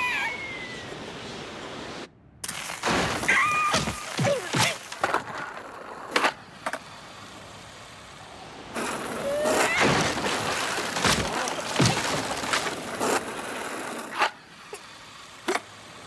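Cartoon slapstick sound effects: a steady rushing noise with a long string of knocks and thuds, and a few short gliding squawks from the ostrich character, dying down near the end.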